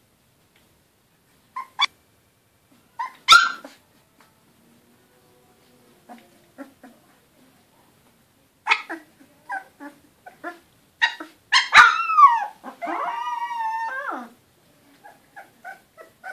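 Eighteen-day-old goldador puppies squeaking and yelping in short, scattered cries. Past halfway the cries come thicker, ending in a falling squeal and then a long wavering whine of about a second and a half.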